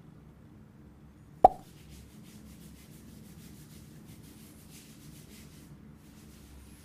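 A single sharp plop about a second and a half in, followed by several seconds of quick, faint rubbing as hands scrub lather through wet hair.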